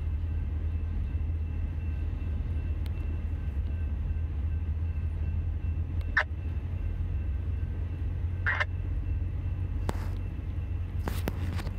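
Freight train cars rolling past at a road crossing: a steady low rumble, with two brief squeals a little past the middle and a few clicks near the end.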